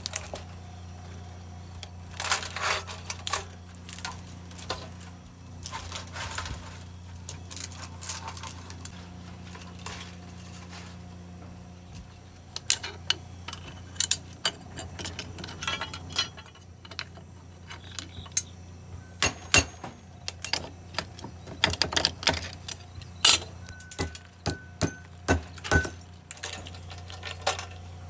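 Small metal parts clinking and clattering now and then as a washing machine motor is handled and taken apart for scrap, over a steady low hum.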